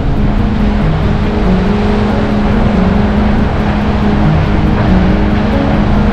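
Background music: held low notes that shift in pitch every second or so over a steady ticking beat.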